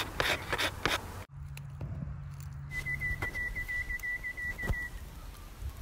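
Stick of charcoal scratching in quick strokes across sketching paper, cut off suddenly about a second in. Then a fast, even trill of short whistled notes on one pitch, about five a second, for some two seconds.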